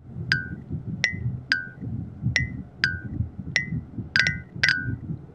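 Short, sharp clinks ringing at two alternating pitches, about nine in all at an irregular pace, two in quick succession near the end, over a low rumbling noise.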